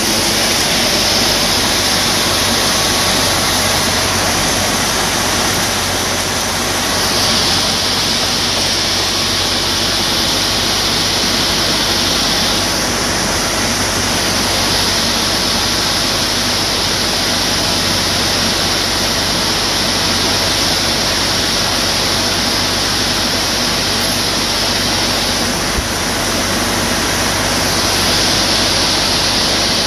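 Steady, loud rushing air noise from dyno cell cooling fans, with a faint low hum underneath.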